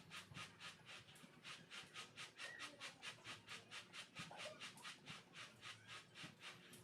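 Faint rustling and rubbing of nylon fishing line being worked into hitch knots, over a steady rhythmic hiss pulsing about five times a second.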